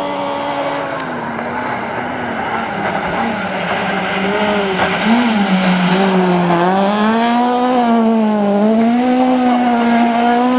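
Citroën C2 rally car's engine at full racing revs as it comes past. Its note rises and falls several times and gets louder in the second half, with some tyre noise.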